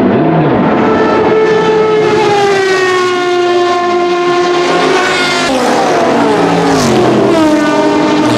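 Judd GV4 4.0-litre V10 of a 2002 Dome S101 racing prototype screaming at high revs as the car goes past, its pitch sliding down, holding steady, then dropping steeply and climbing again near the end.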